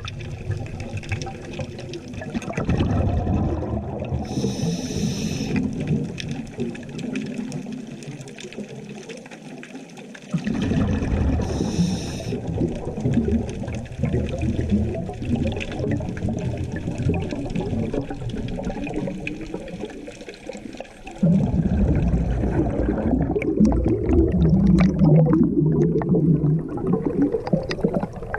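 Underwater rumble and sloshing of sea water heard through a submerged camera, with two brief bursts of bubbling hiss, the first about four seconds in and the second about twelve seconds in. The sound changes suddenly about ten seconds in and again about twenty-one seconds in.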